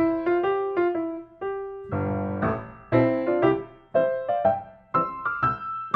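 Background music: a piano melody of struck notes with occasional chords.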